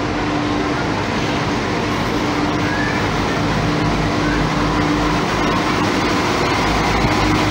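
Class 172 Turbostar diesel multiple unit rolling slowly past the platform under its underfloor diesel engines: a steady engine drone with a humming tone over a rumble. A lower engine note joins about halfway through and the low rumble grows louder near the end.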